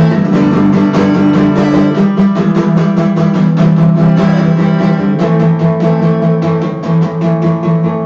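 Acoustic guitar strummed in a steady rhythm, playing chords without vocals.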